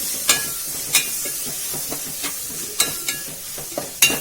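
Onion, tomato and ginger-garlic paste sizzling in a pan while a spoon stirs them, scraping and knocking against the pan: a steady frying hiss with a few sharp knocks, twice near the start and three times near the end.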